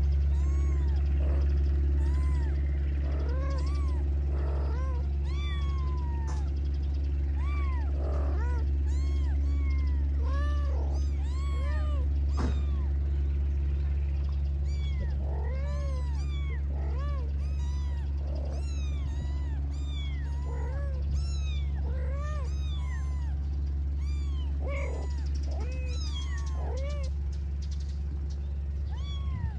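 Tabby kittens mewing over and over, many short high-pitched mews throughout, over a steady low engine hum.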